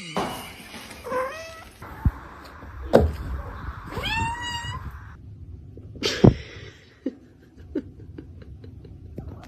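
Cat meowing several times, with high rising calls about a second in and a longer one around four seconds, between a few sharp knocks, the loudest about six seconds in.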